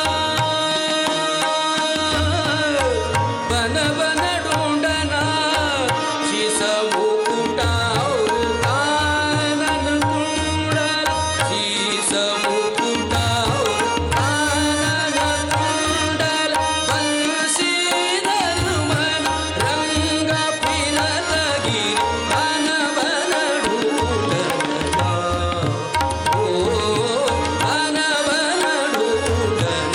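A male voice singing an Indian classical song, accompanied by a harmonium's held notes and a drum keeping a steady beat.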